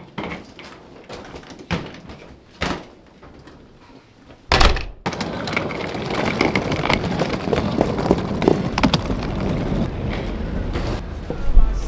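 Scattered knocks and thumps of a door and luggage being handled. About four and a half seconds in comes a loud thump, and then the continuous clattering rumble of rolling suitcase wheels on stone paving.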